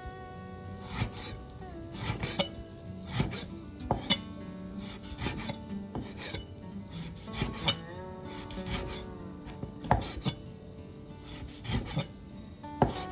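Background music with sliding notes, over irregular scraping and knocking from kitchen work, about one or two strokes a second.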